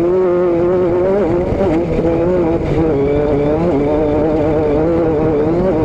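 A vehicle engine running at a fairly steady speed, its pitch rising and falling slightly, over a steady rushing noise.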